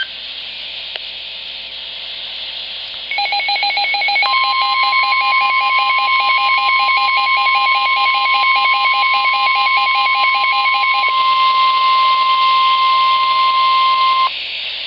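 NOAA Weather Radio hiss, then fast pulsing electronic beeps starting about three seconds in, joined a second later by the steady 1050 Hz Weather Radio warning alarm tone. The beeping stops a few seconds before the end, and the alarm tone holds about ten seconds, then cuts off suddenly, leaving radio hiss.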